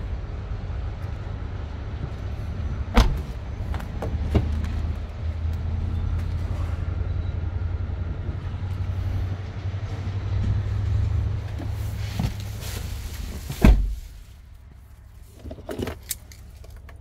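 Steady low rumble with a couple of sharp knocks, then a car door shuts with a loud thump about three-quarters of the way in. After it the rumble drops away to the quiet of a closed car cabin, with a few light key clicks near the end.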